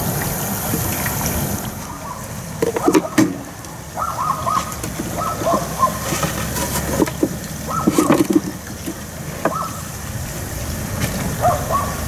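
Wooden bee hive boxes knocking against the steel vat and each other as they are lowered into molten paraffin wax and gum rosin, with the hot wax sloshing and bubbling as moisture cooks out of the wood. Several sharp knocks stand over a steady low rumble.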